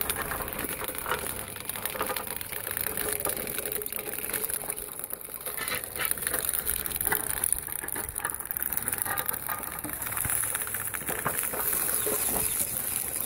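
Homemade tracked loader running on two electric motors, its metal track slats rattling and clanking steadily over dirt as it drives. The motors are on 12 volts rather than the 24 volts the machine is built for.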